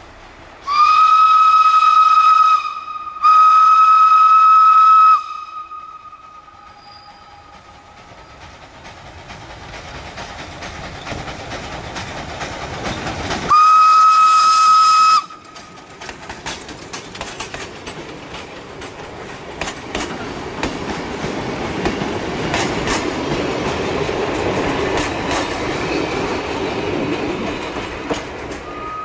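Small steam tank locomotive sounding its steam whistle: two long blasts in the first five seconds and a third about halfway through. Then the locomotive and its coaches pass close by, wheels clicking over the rail joints, the sound growing louder and easing off near the end.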